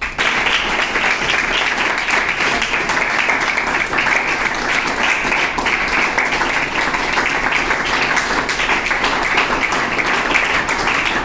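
A room of students applauding, many hands clapping together. It starts suddenly and keeps up steadily.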